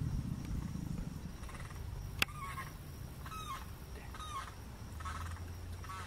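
American alligator bellowing: a deep low rumble that fades over the first second. From about two seconds in, a bird gives short calls about once a second, with a single sharp click just before the first call.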